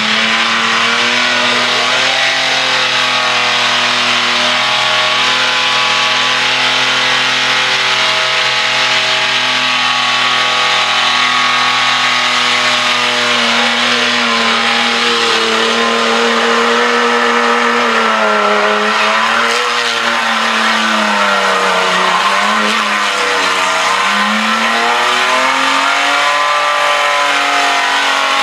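Custom burnout tow truck's engine held at high revs while its rear tyres spin and squeal through a smoking burnout. About two-thirds of the way through, the revs dip and climb again several times.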